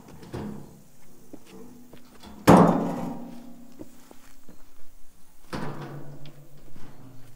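Metal two-wheeled wheelbarrow knocked about as it is wheeled out through a doorway and over the step: a loud metallic bang that rings on for about a second, two and a half seconds in, then a second, softer clank about three seconds later.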